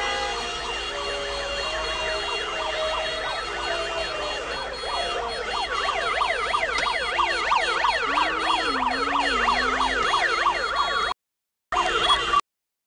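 Siren wailing in fast, repeated up-and-down sweeps that grow denser and louder about halfway through. The sound cuts out abruptly twice near the end.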